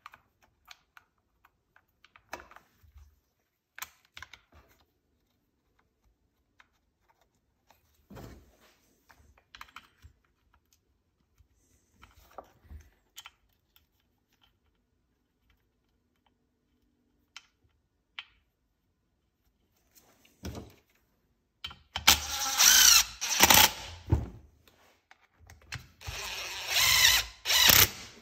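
Light clicks and taps of chainsaw parts being handled, then a cordless impact driver runs in two loud bursts of about two seconds each near the end, driving in screws.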